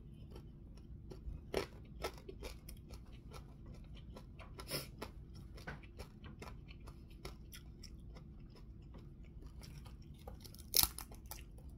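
A person eating with his fingers, chewing and crunching crisp food close to the microphone. Irregular small crunches and clicks, with a few louder crunches about two, five and eleven seconds in.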